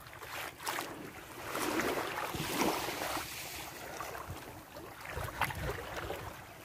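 Small waves lapping and washing onto a sandy shore, the wash swelling up and falling away about two to three seconds in, with wind rumbling on the microphone.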